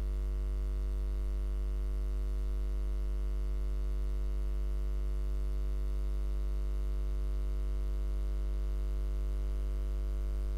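Steady low electrical mains hum, a deep tone with a stack of buzzing overtones above it.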